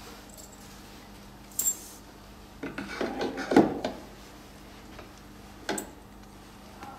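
Round metal cable connectors of a beauty machine's treatment handpiece clinking and rattling as the cable is handled and plugged into a socket on the machine's back panel: a sharp clink, then a second or so of rattling and clicking, then a single click near the end.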